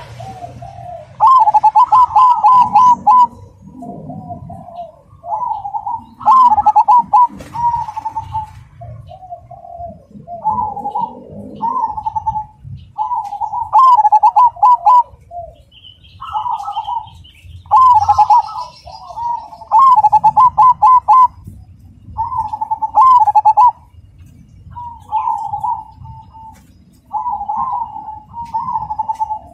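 Zebra dove, a dark 'cemani' perkutut, singing its rhythmic song: over and over, short phrases of quick rolling coos, each a second or two long, with brief gaps between them.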